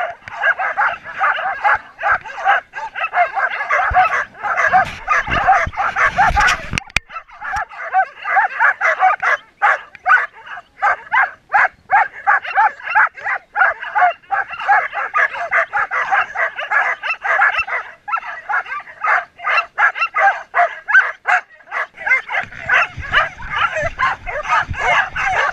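A team of Samoyed sled dogs in harness barking, many dogs at once and without pause: the pre-start clamour of dogs eager to run.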